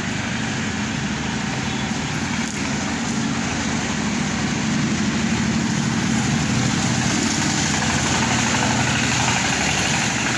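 A motor vehicle engine idling, a steady low running sound that grows a little louder about halfway through.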